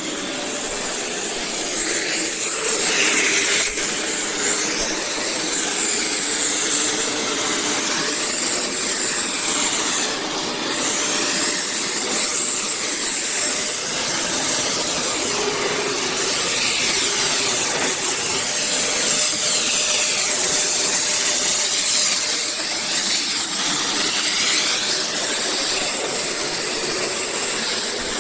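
Eureka Whirlwind NEN110C bagless canister vacuum cleaner running. The motor comes up to speed over the first couple of seconds, then runs steadily with a high whine, its sound shifting a little in pitch as it goes.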